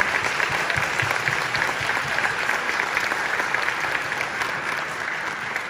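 Audience applauding: dense clapping that eases off slightly near the end.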